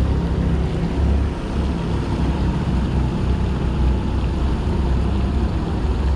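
Small creek running over a shallow riffle, a steady wash of water, with wind rumbling on the microphone.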